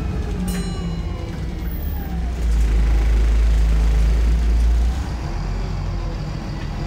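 VDL SB200 bus's engine and drivetrain running, a deep rumble heard from inside the rear of the saloon. It grows louder about a third of the way in and drops back again about two-thirds of the way through.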